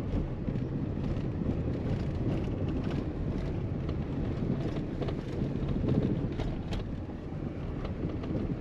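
A vehicle driving over a rough gravel dirt road, heard from inside the cab: a steady low rumble of engine and tyres, with scattered ticks and knocks throughout.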